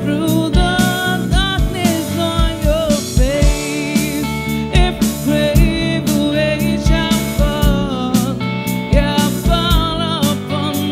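A live band playing: a woman singing lead over a drum kit, electric bass and electric guitar, with a steady drum beat throughout.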